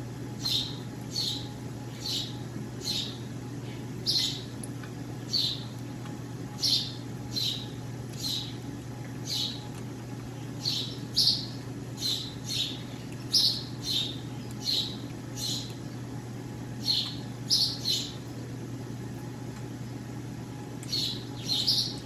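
A small bird chirping: single short high chirps, roughly one a second at an uneven pace, over a steady low hum.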